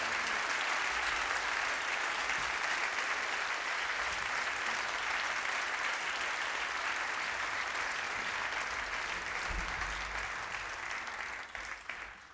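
Concert audience applauding steadily, then thinning to a few last claps and dying away near the end.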